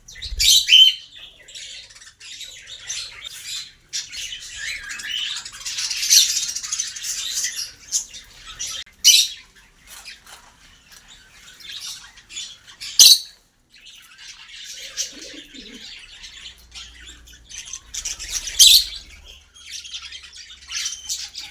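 A flock of small pet parrots, lovebirds and budgerigars, chattering and chirping without a break, with a handful of sharp, loud squawks cutting through.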